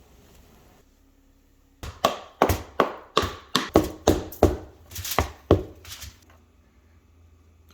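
A run of about a dozen sharp knocks on wood, two to three a second, each with a short ringing tail, stopping about two seconds before the end.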